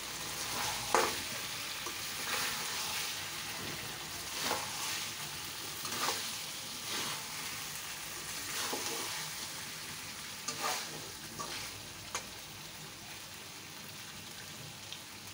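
Beef and potato curry sizzling in an iron karahi as a spatula stirs it, with a scrape of the spatula against the pan every second or two. The meat and spices are being fried down with little liquid before the water for the gravy goes in.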